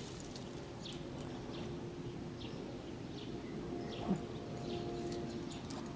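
Cockapoo digging in soft garden soil with her front paws: repeated short scratches of dirt, irregularly about one or two a second, with a brief thump about four seconds in.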